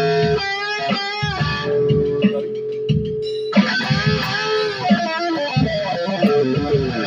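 Electric guitar with a Floyd Rose tremolo: a held note wavering in pitch, then about halfway in a louder run of notes and bends stepping downward.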